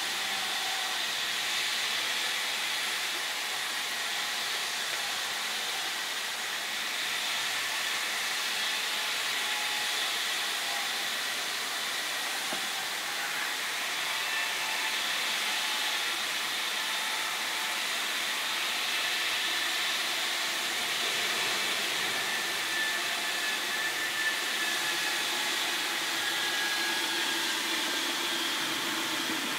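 A steady, even outdoor hiss with no distinct events, with faint high thin tones running through it.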